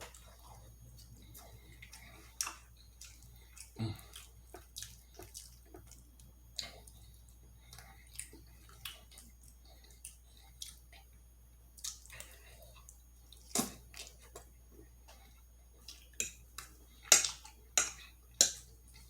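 Close-miked wet mouth sounds of eating: chewing, lip smacks and sharp clicks, scattered irregularly, with a few louder smacks near the end.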